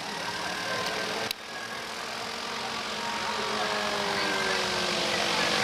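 An engine running steadily over outdoor background noise, its pitch sliding slowly downward. About a second in, the sound cuts off sharply and comes back at a lower level.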